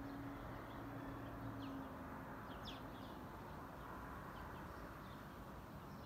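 Scattered short, high bird chirps, each a quick downward slide, over a steady low outdoor background hum; a faint low drone fades out about two seconds in.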